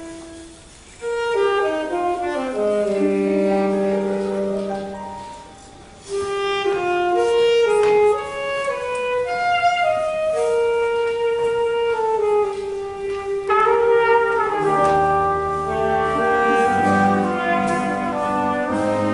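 Alto saxophone and trumpet playing a slow jazz ballad melody as a duet, in long held notes. Lower notes join in about fifteen seconds in.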